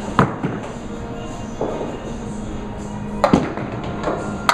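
Bowling alley din: three sharp knocks of balls and pins from the lanes, one just after the start, one about three seconds in and one at the end, over a steady hum.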